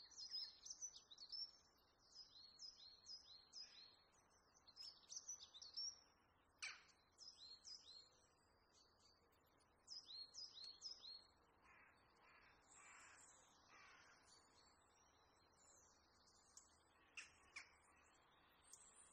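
Faint birdsong: many short, high chirps repeating quickly, then a run of four harsher, lower calls about two-thirds of the way in. A few sharp clicks are heard, one a third of the way in and two near the end.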